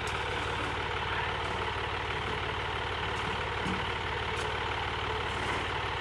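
Heavy diesel engine idling steadily, with a few faint clicks now and then.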